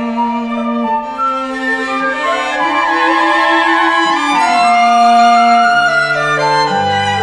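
Classical music on bowed strings: a violin melody over lower strings, in long held notes that change every second or so. It grows louder toward the middle, and deeper bass notes come in near the end.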